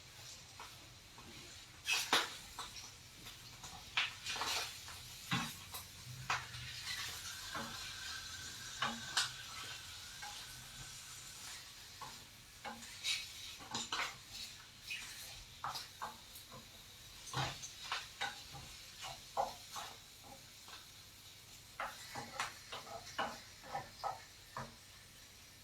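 A kitchen utensil clinking and scraping against a pan or dish in a scatter of irregular sharp clicks and knocks. Food sizzles faintly in the pan for a few seconds in the middle.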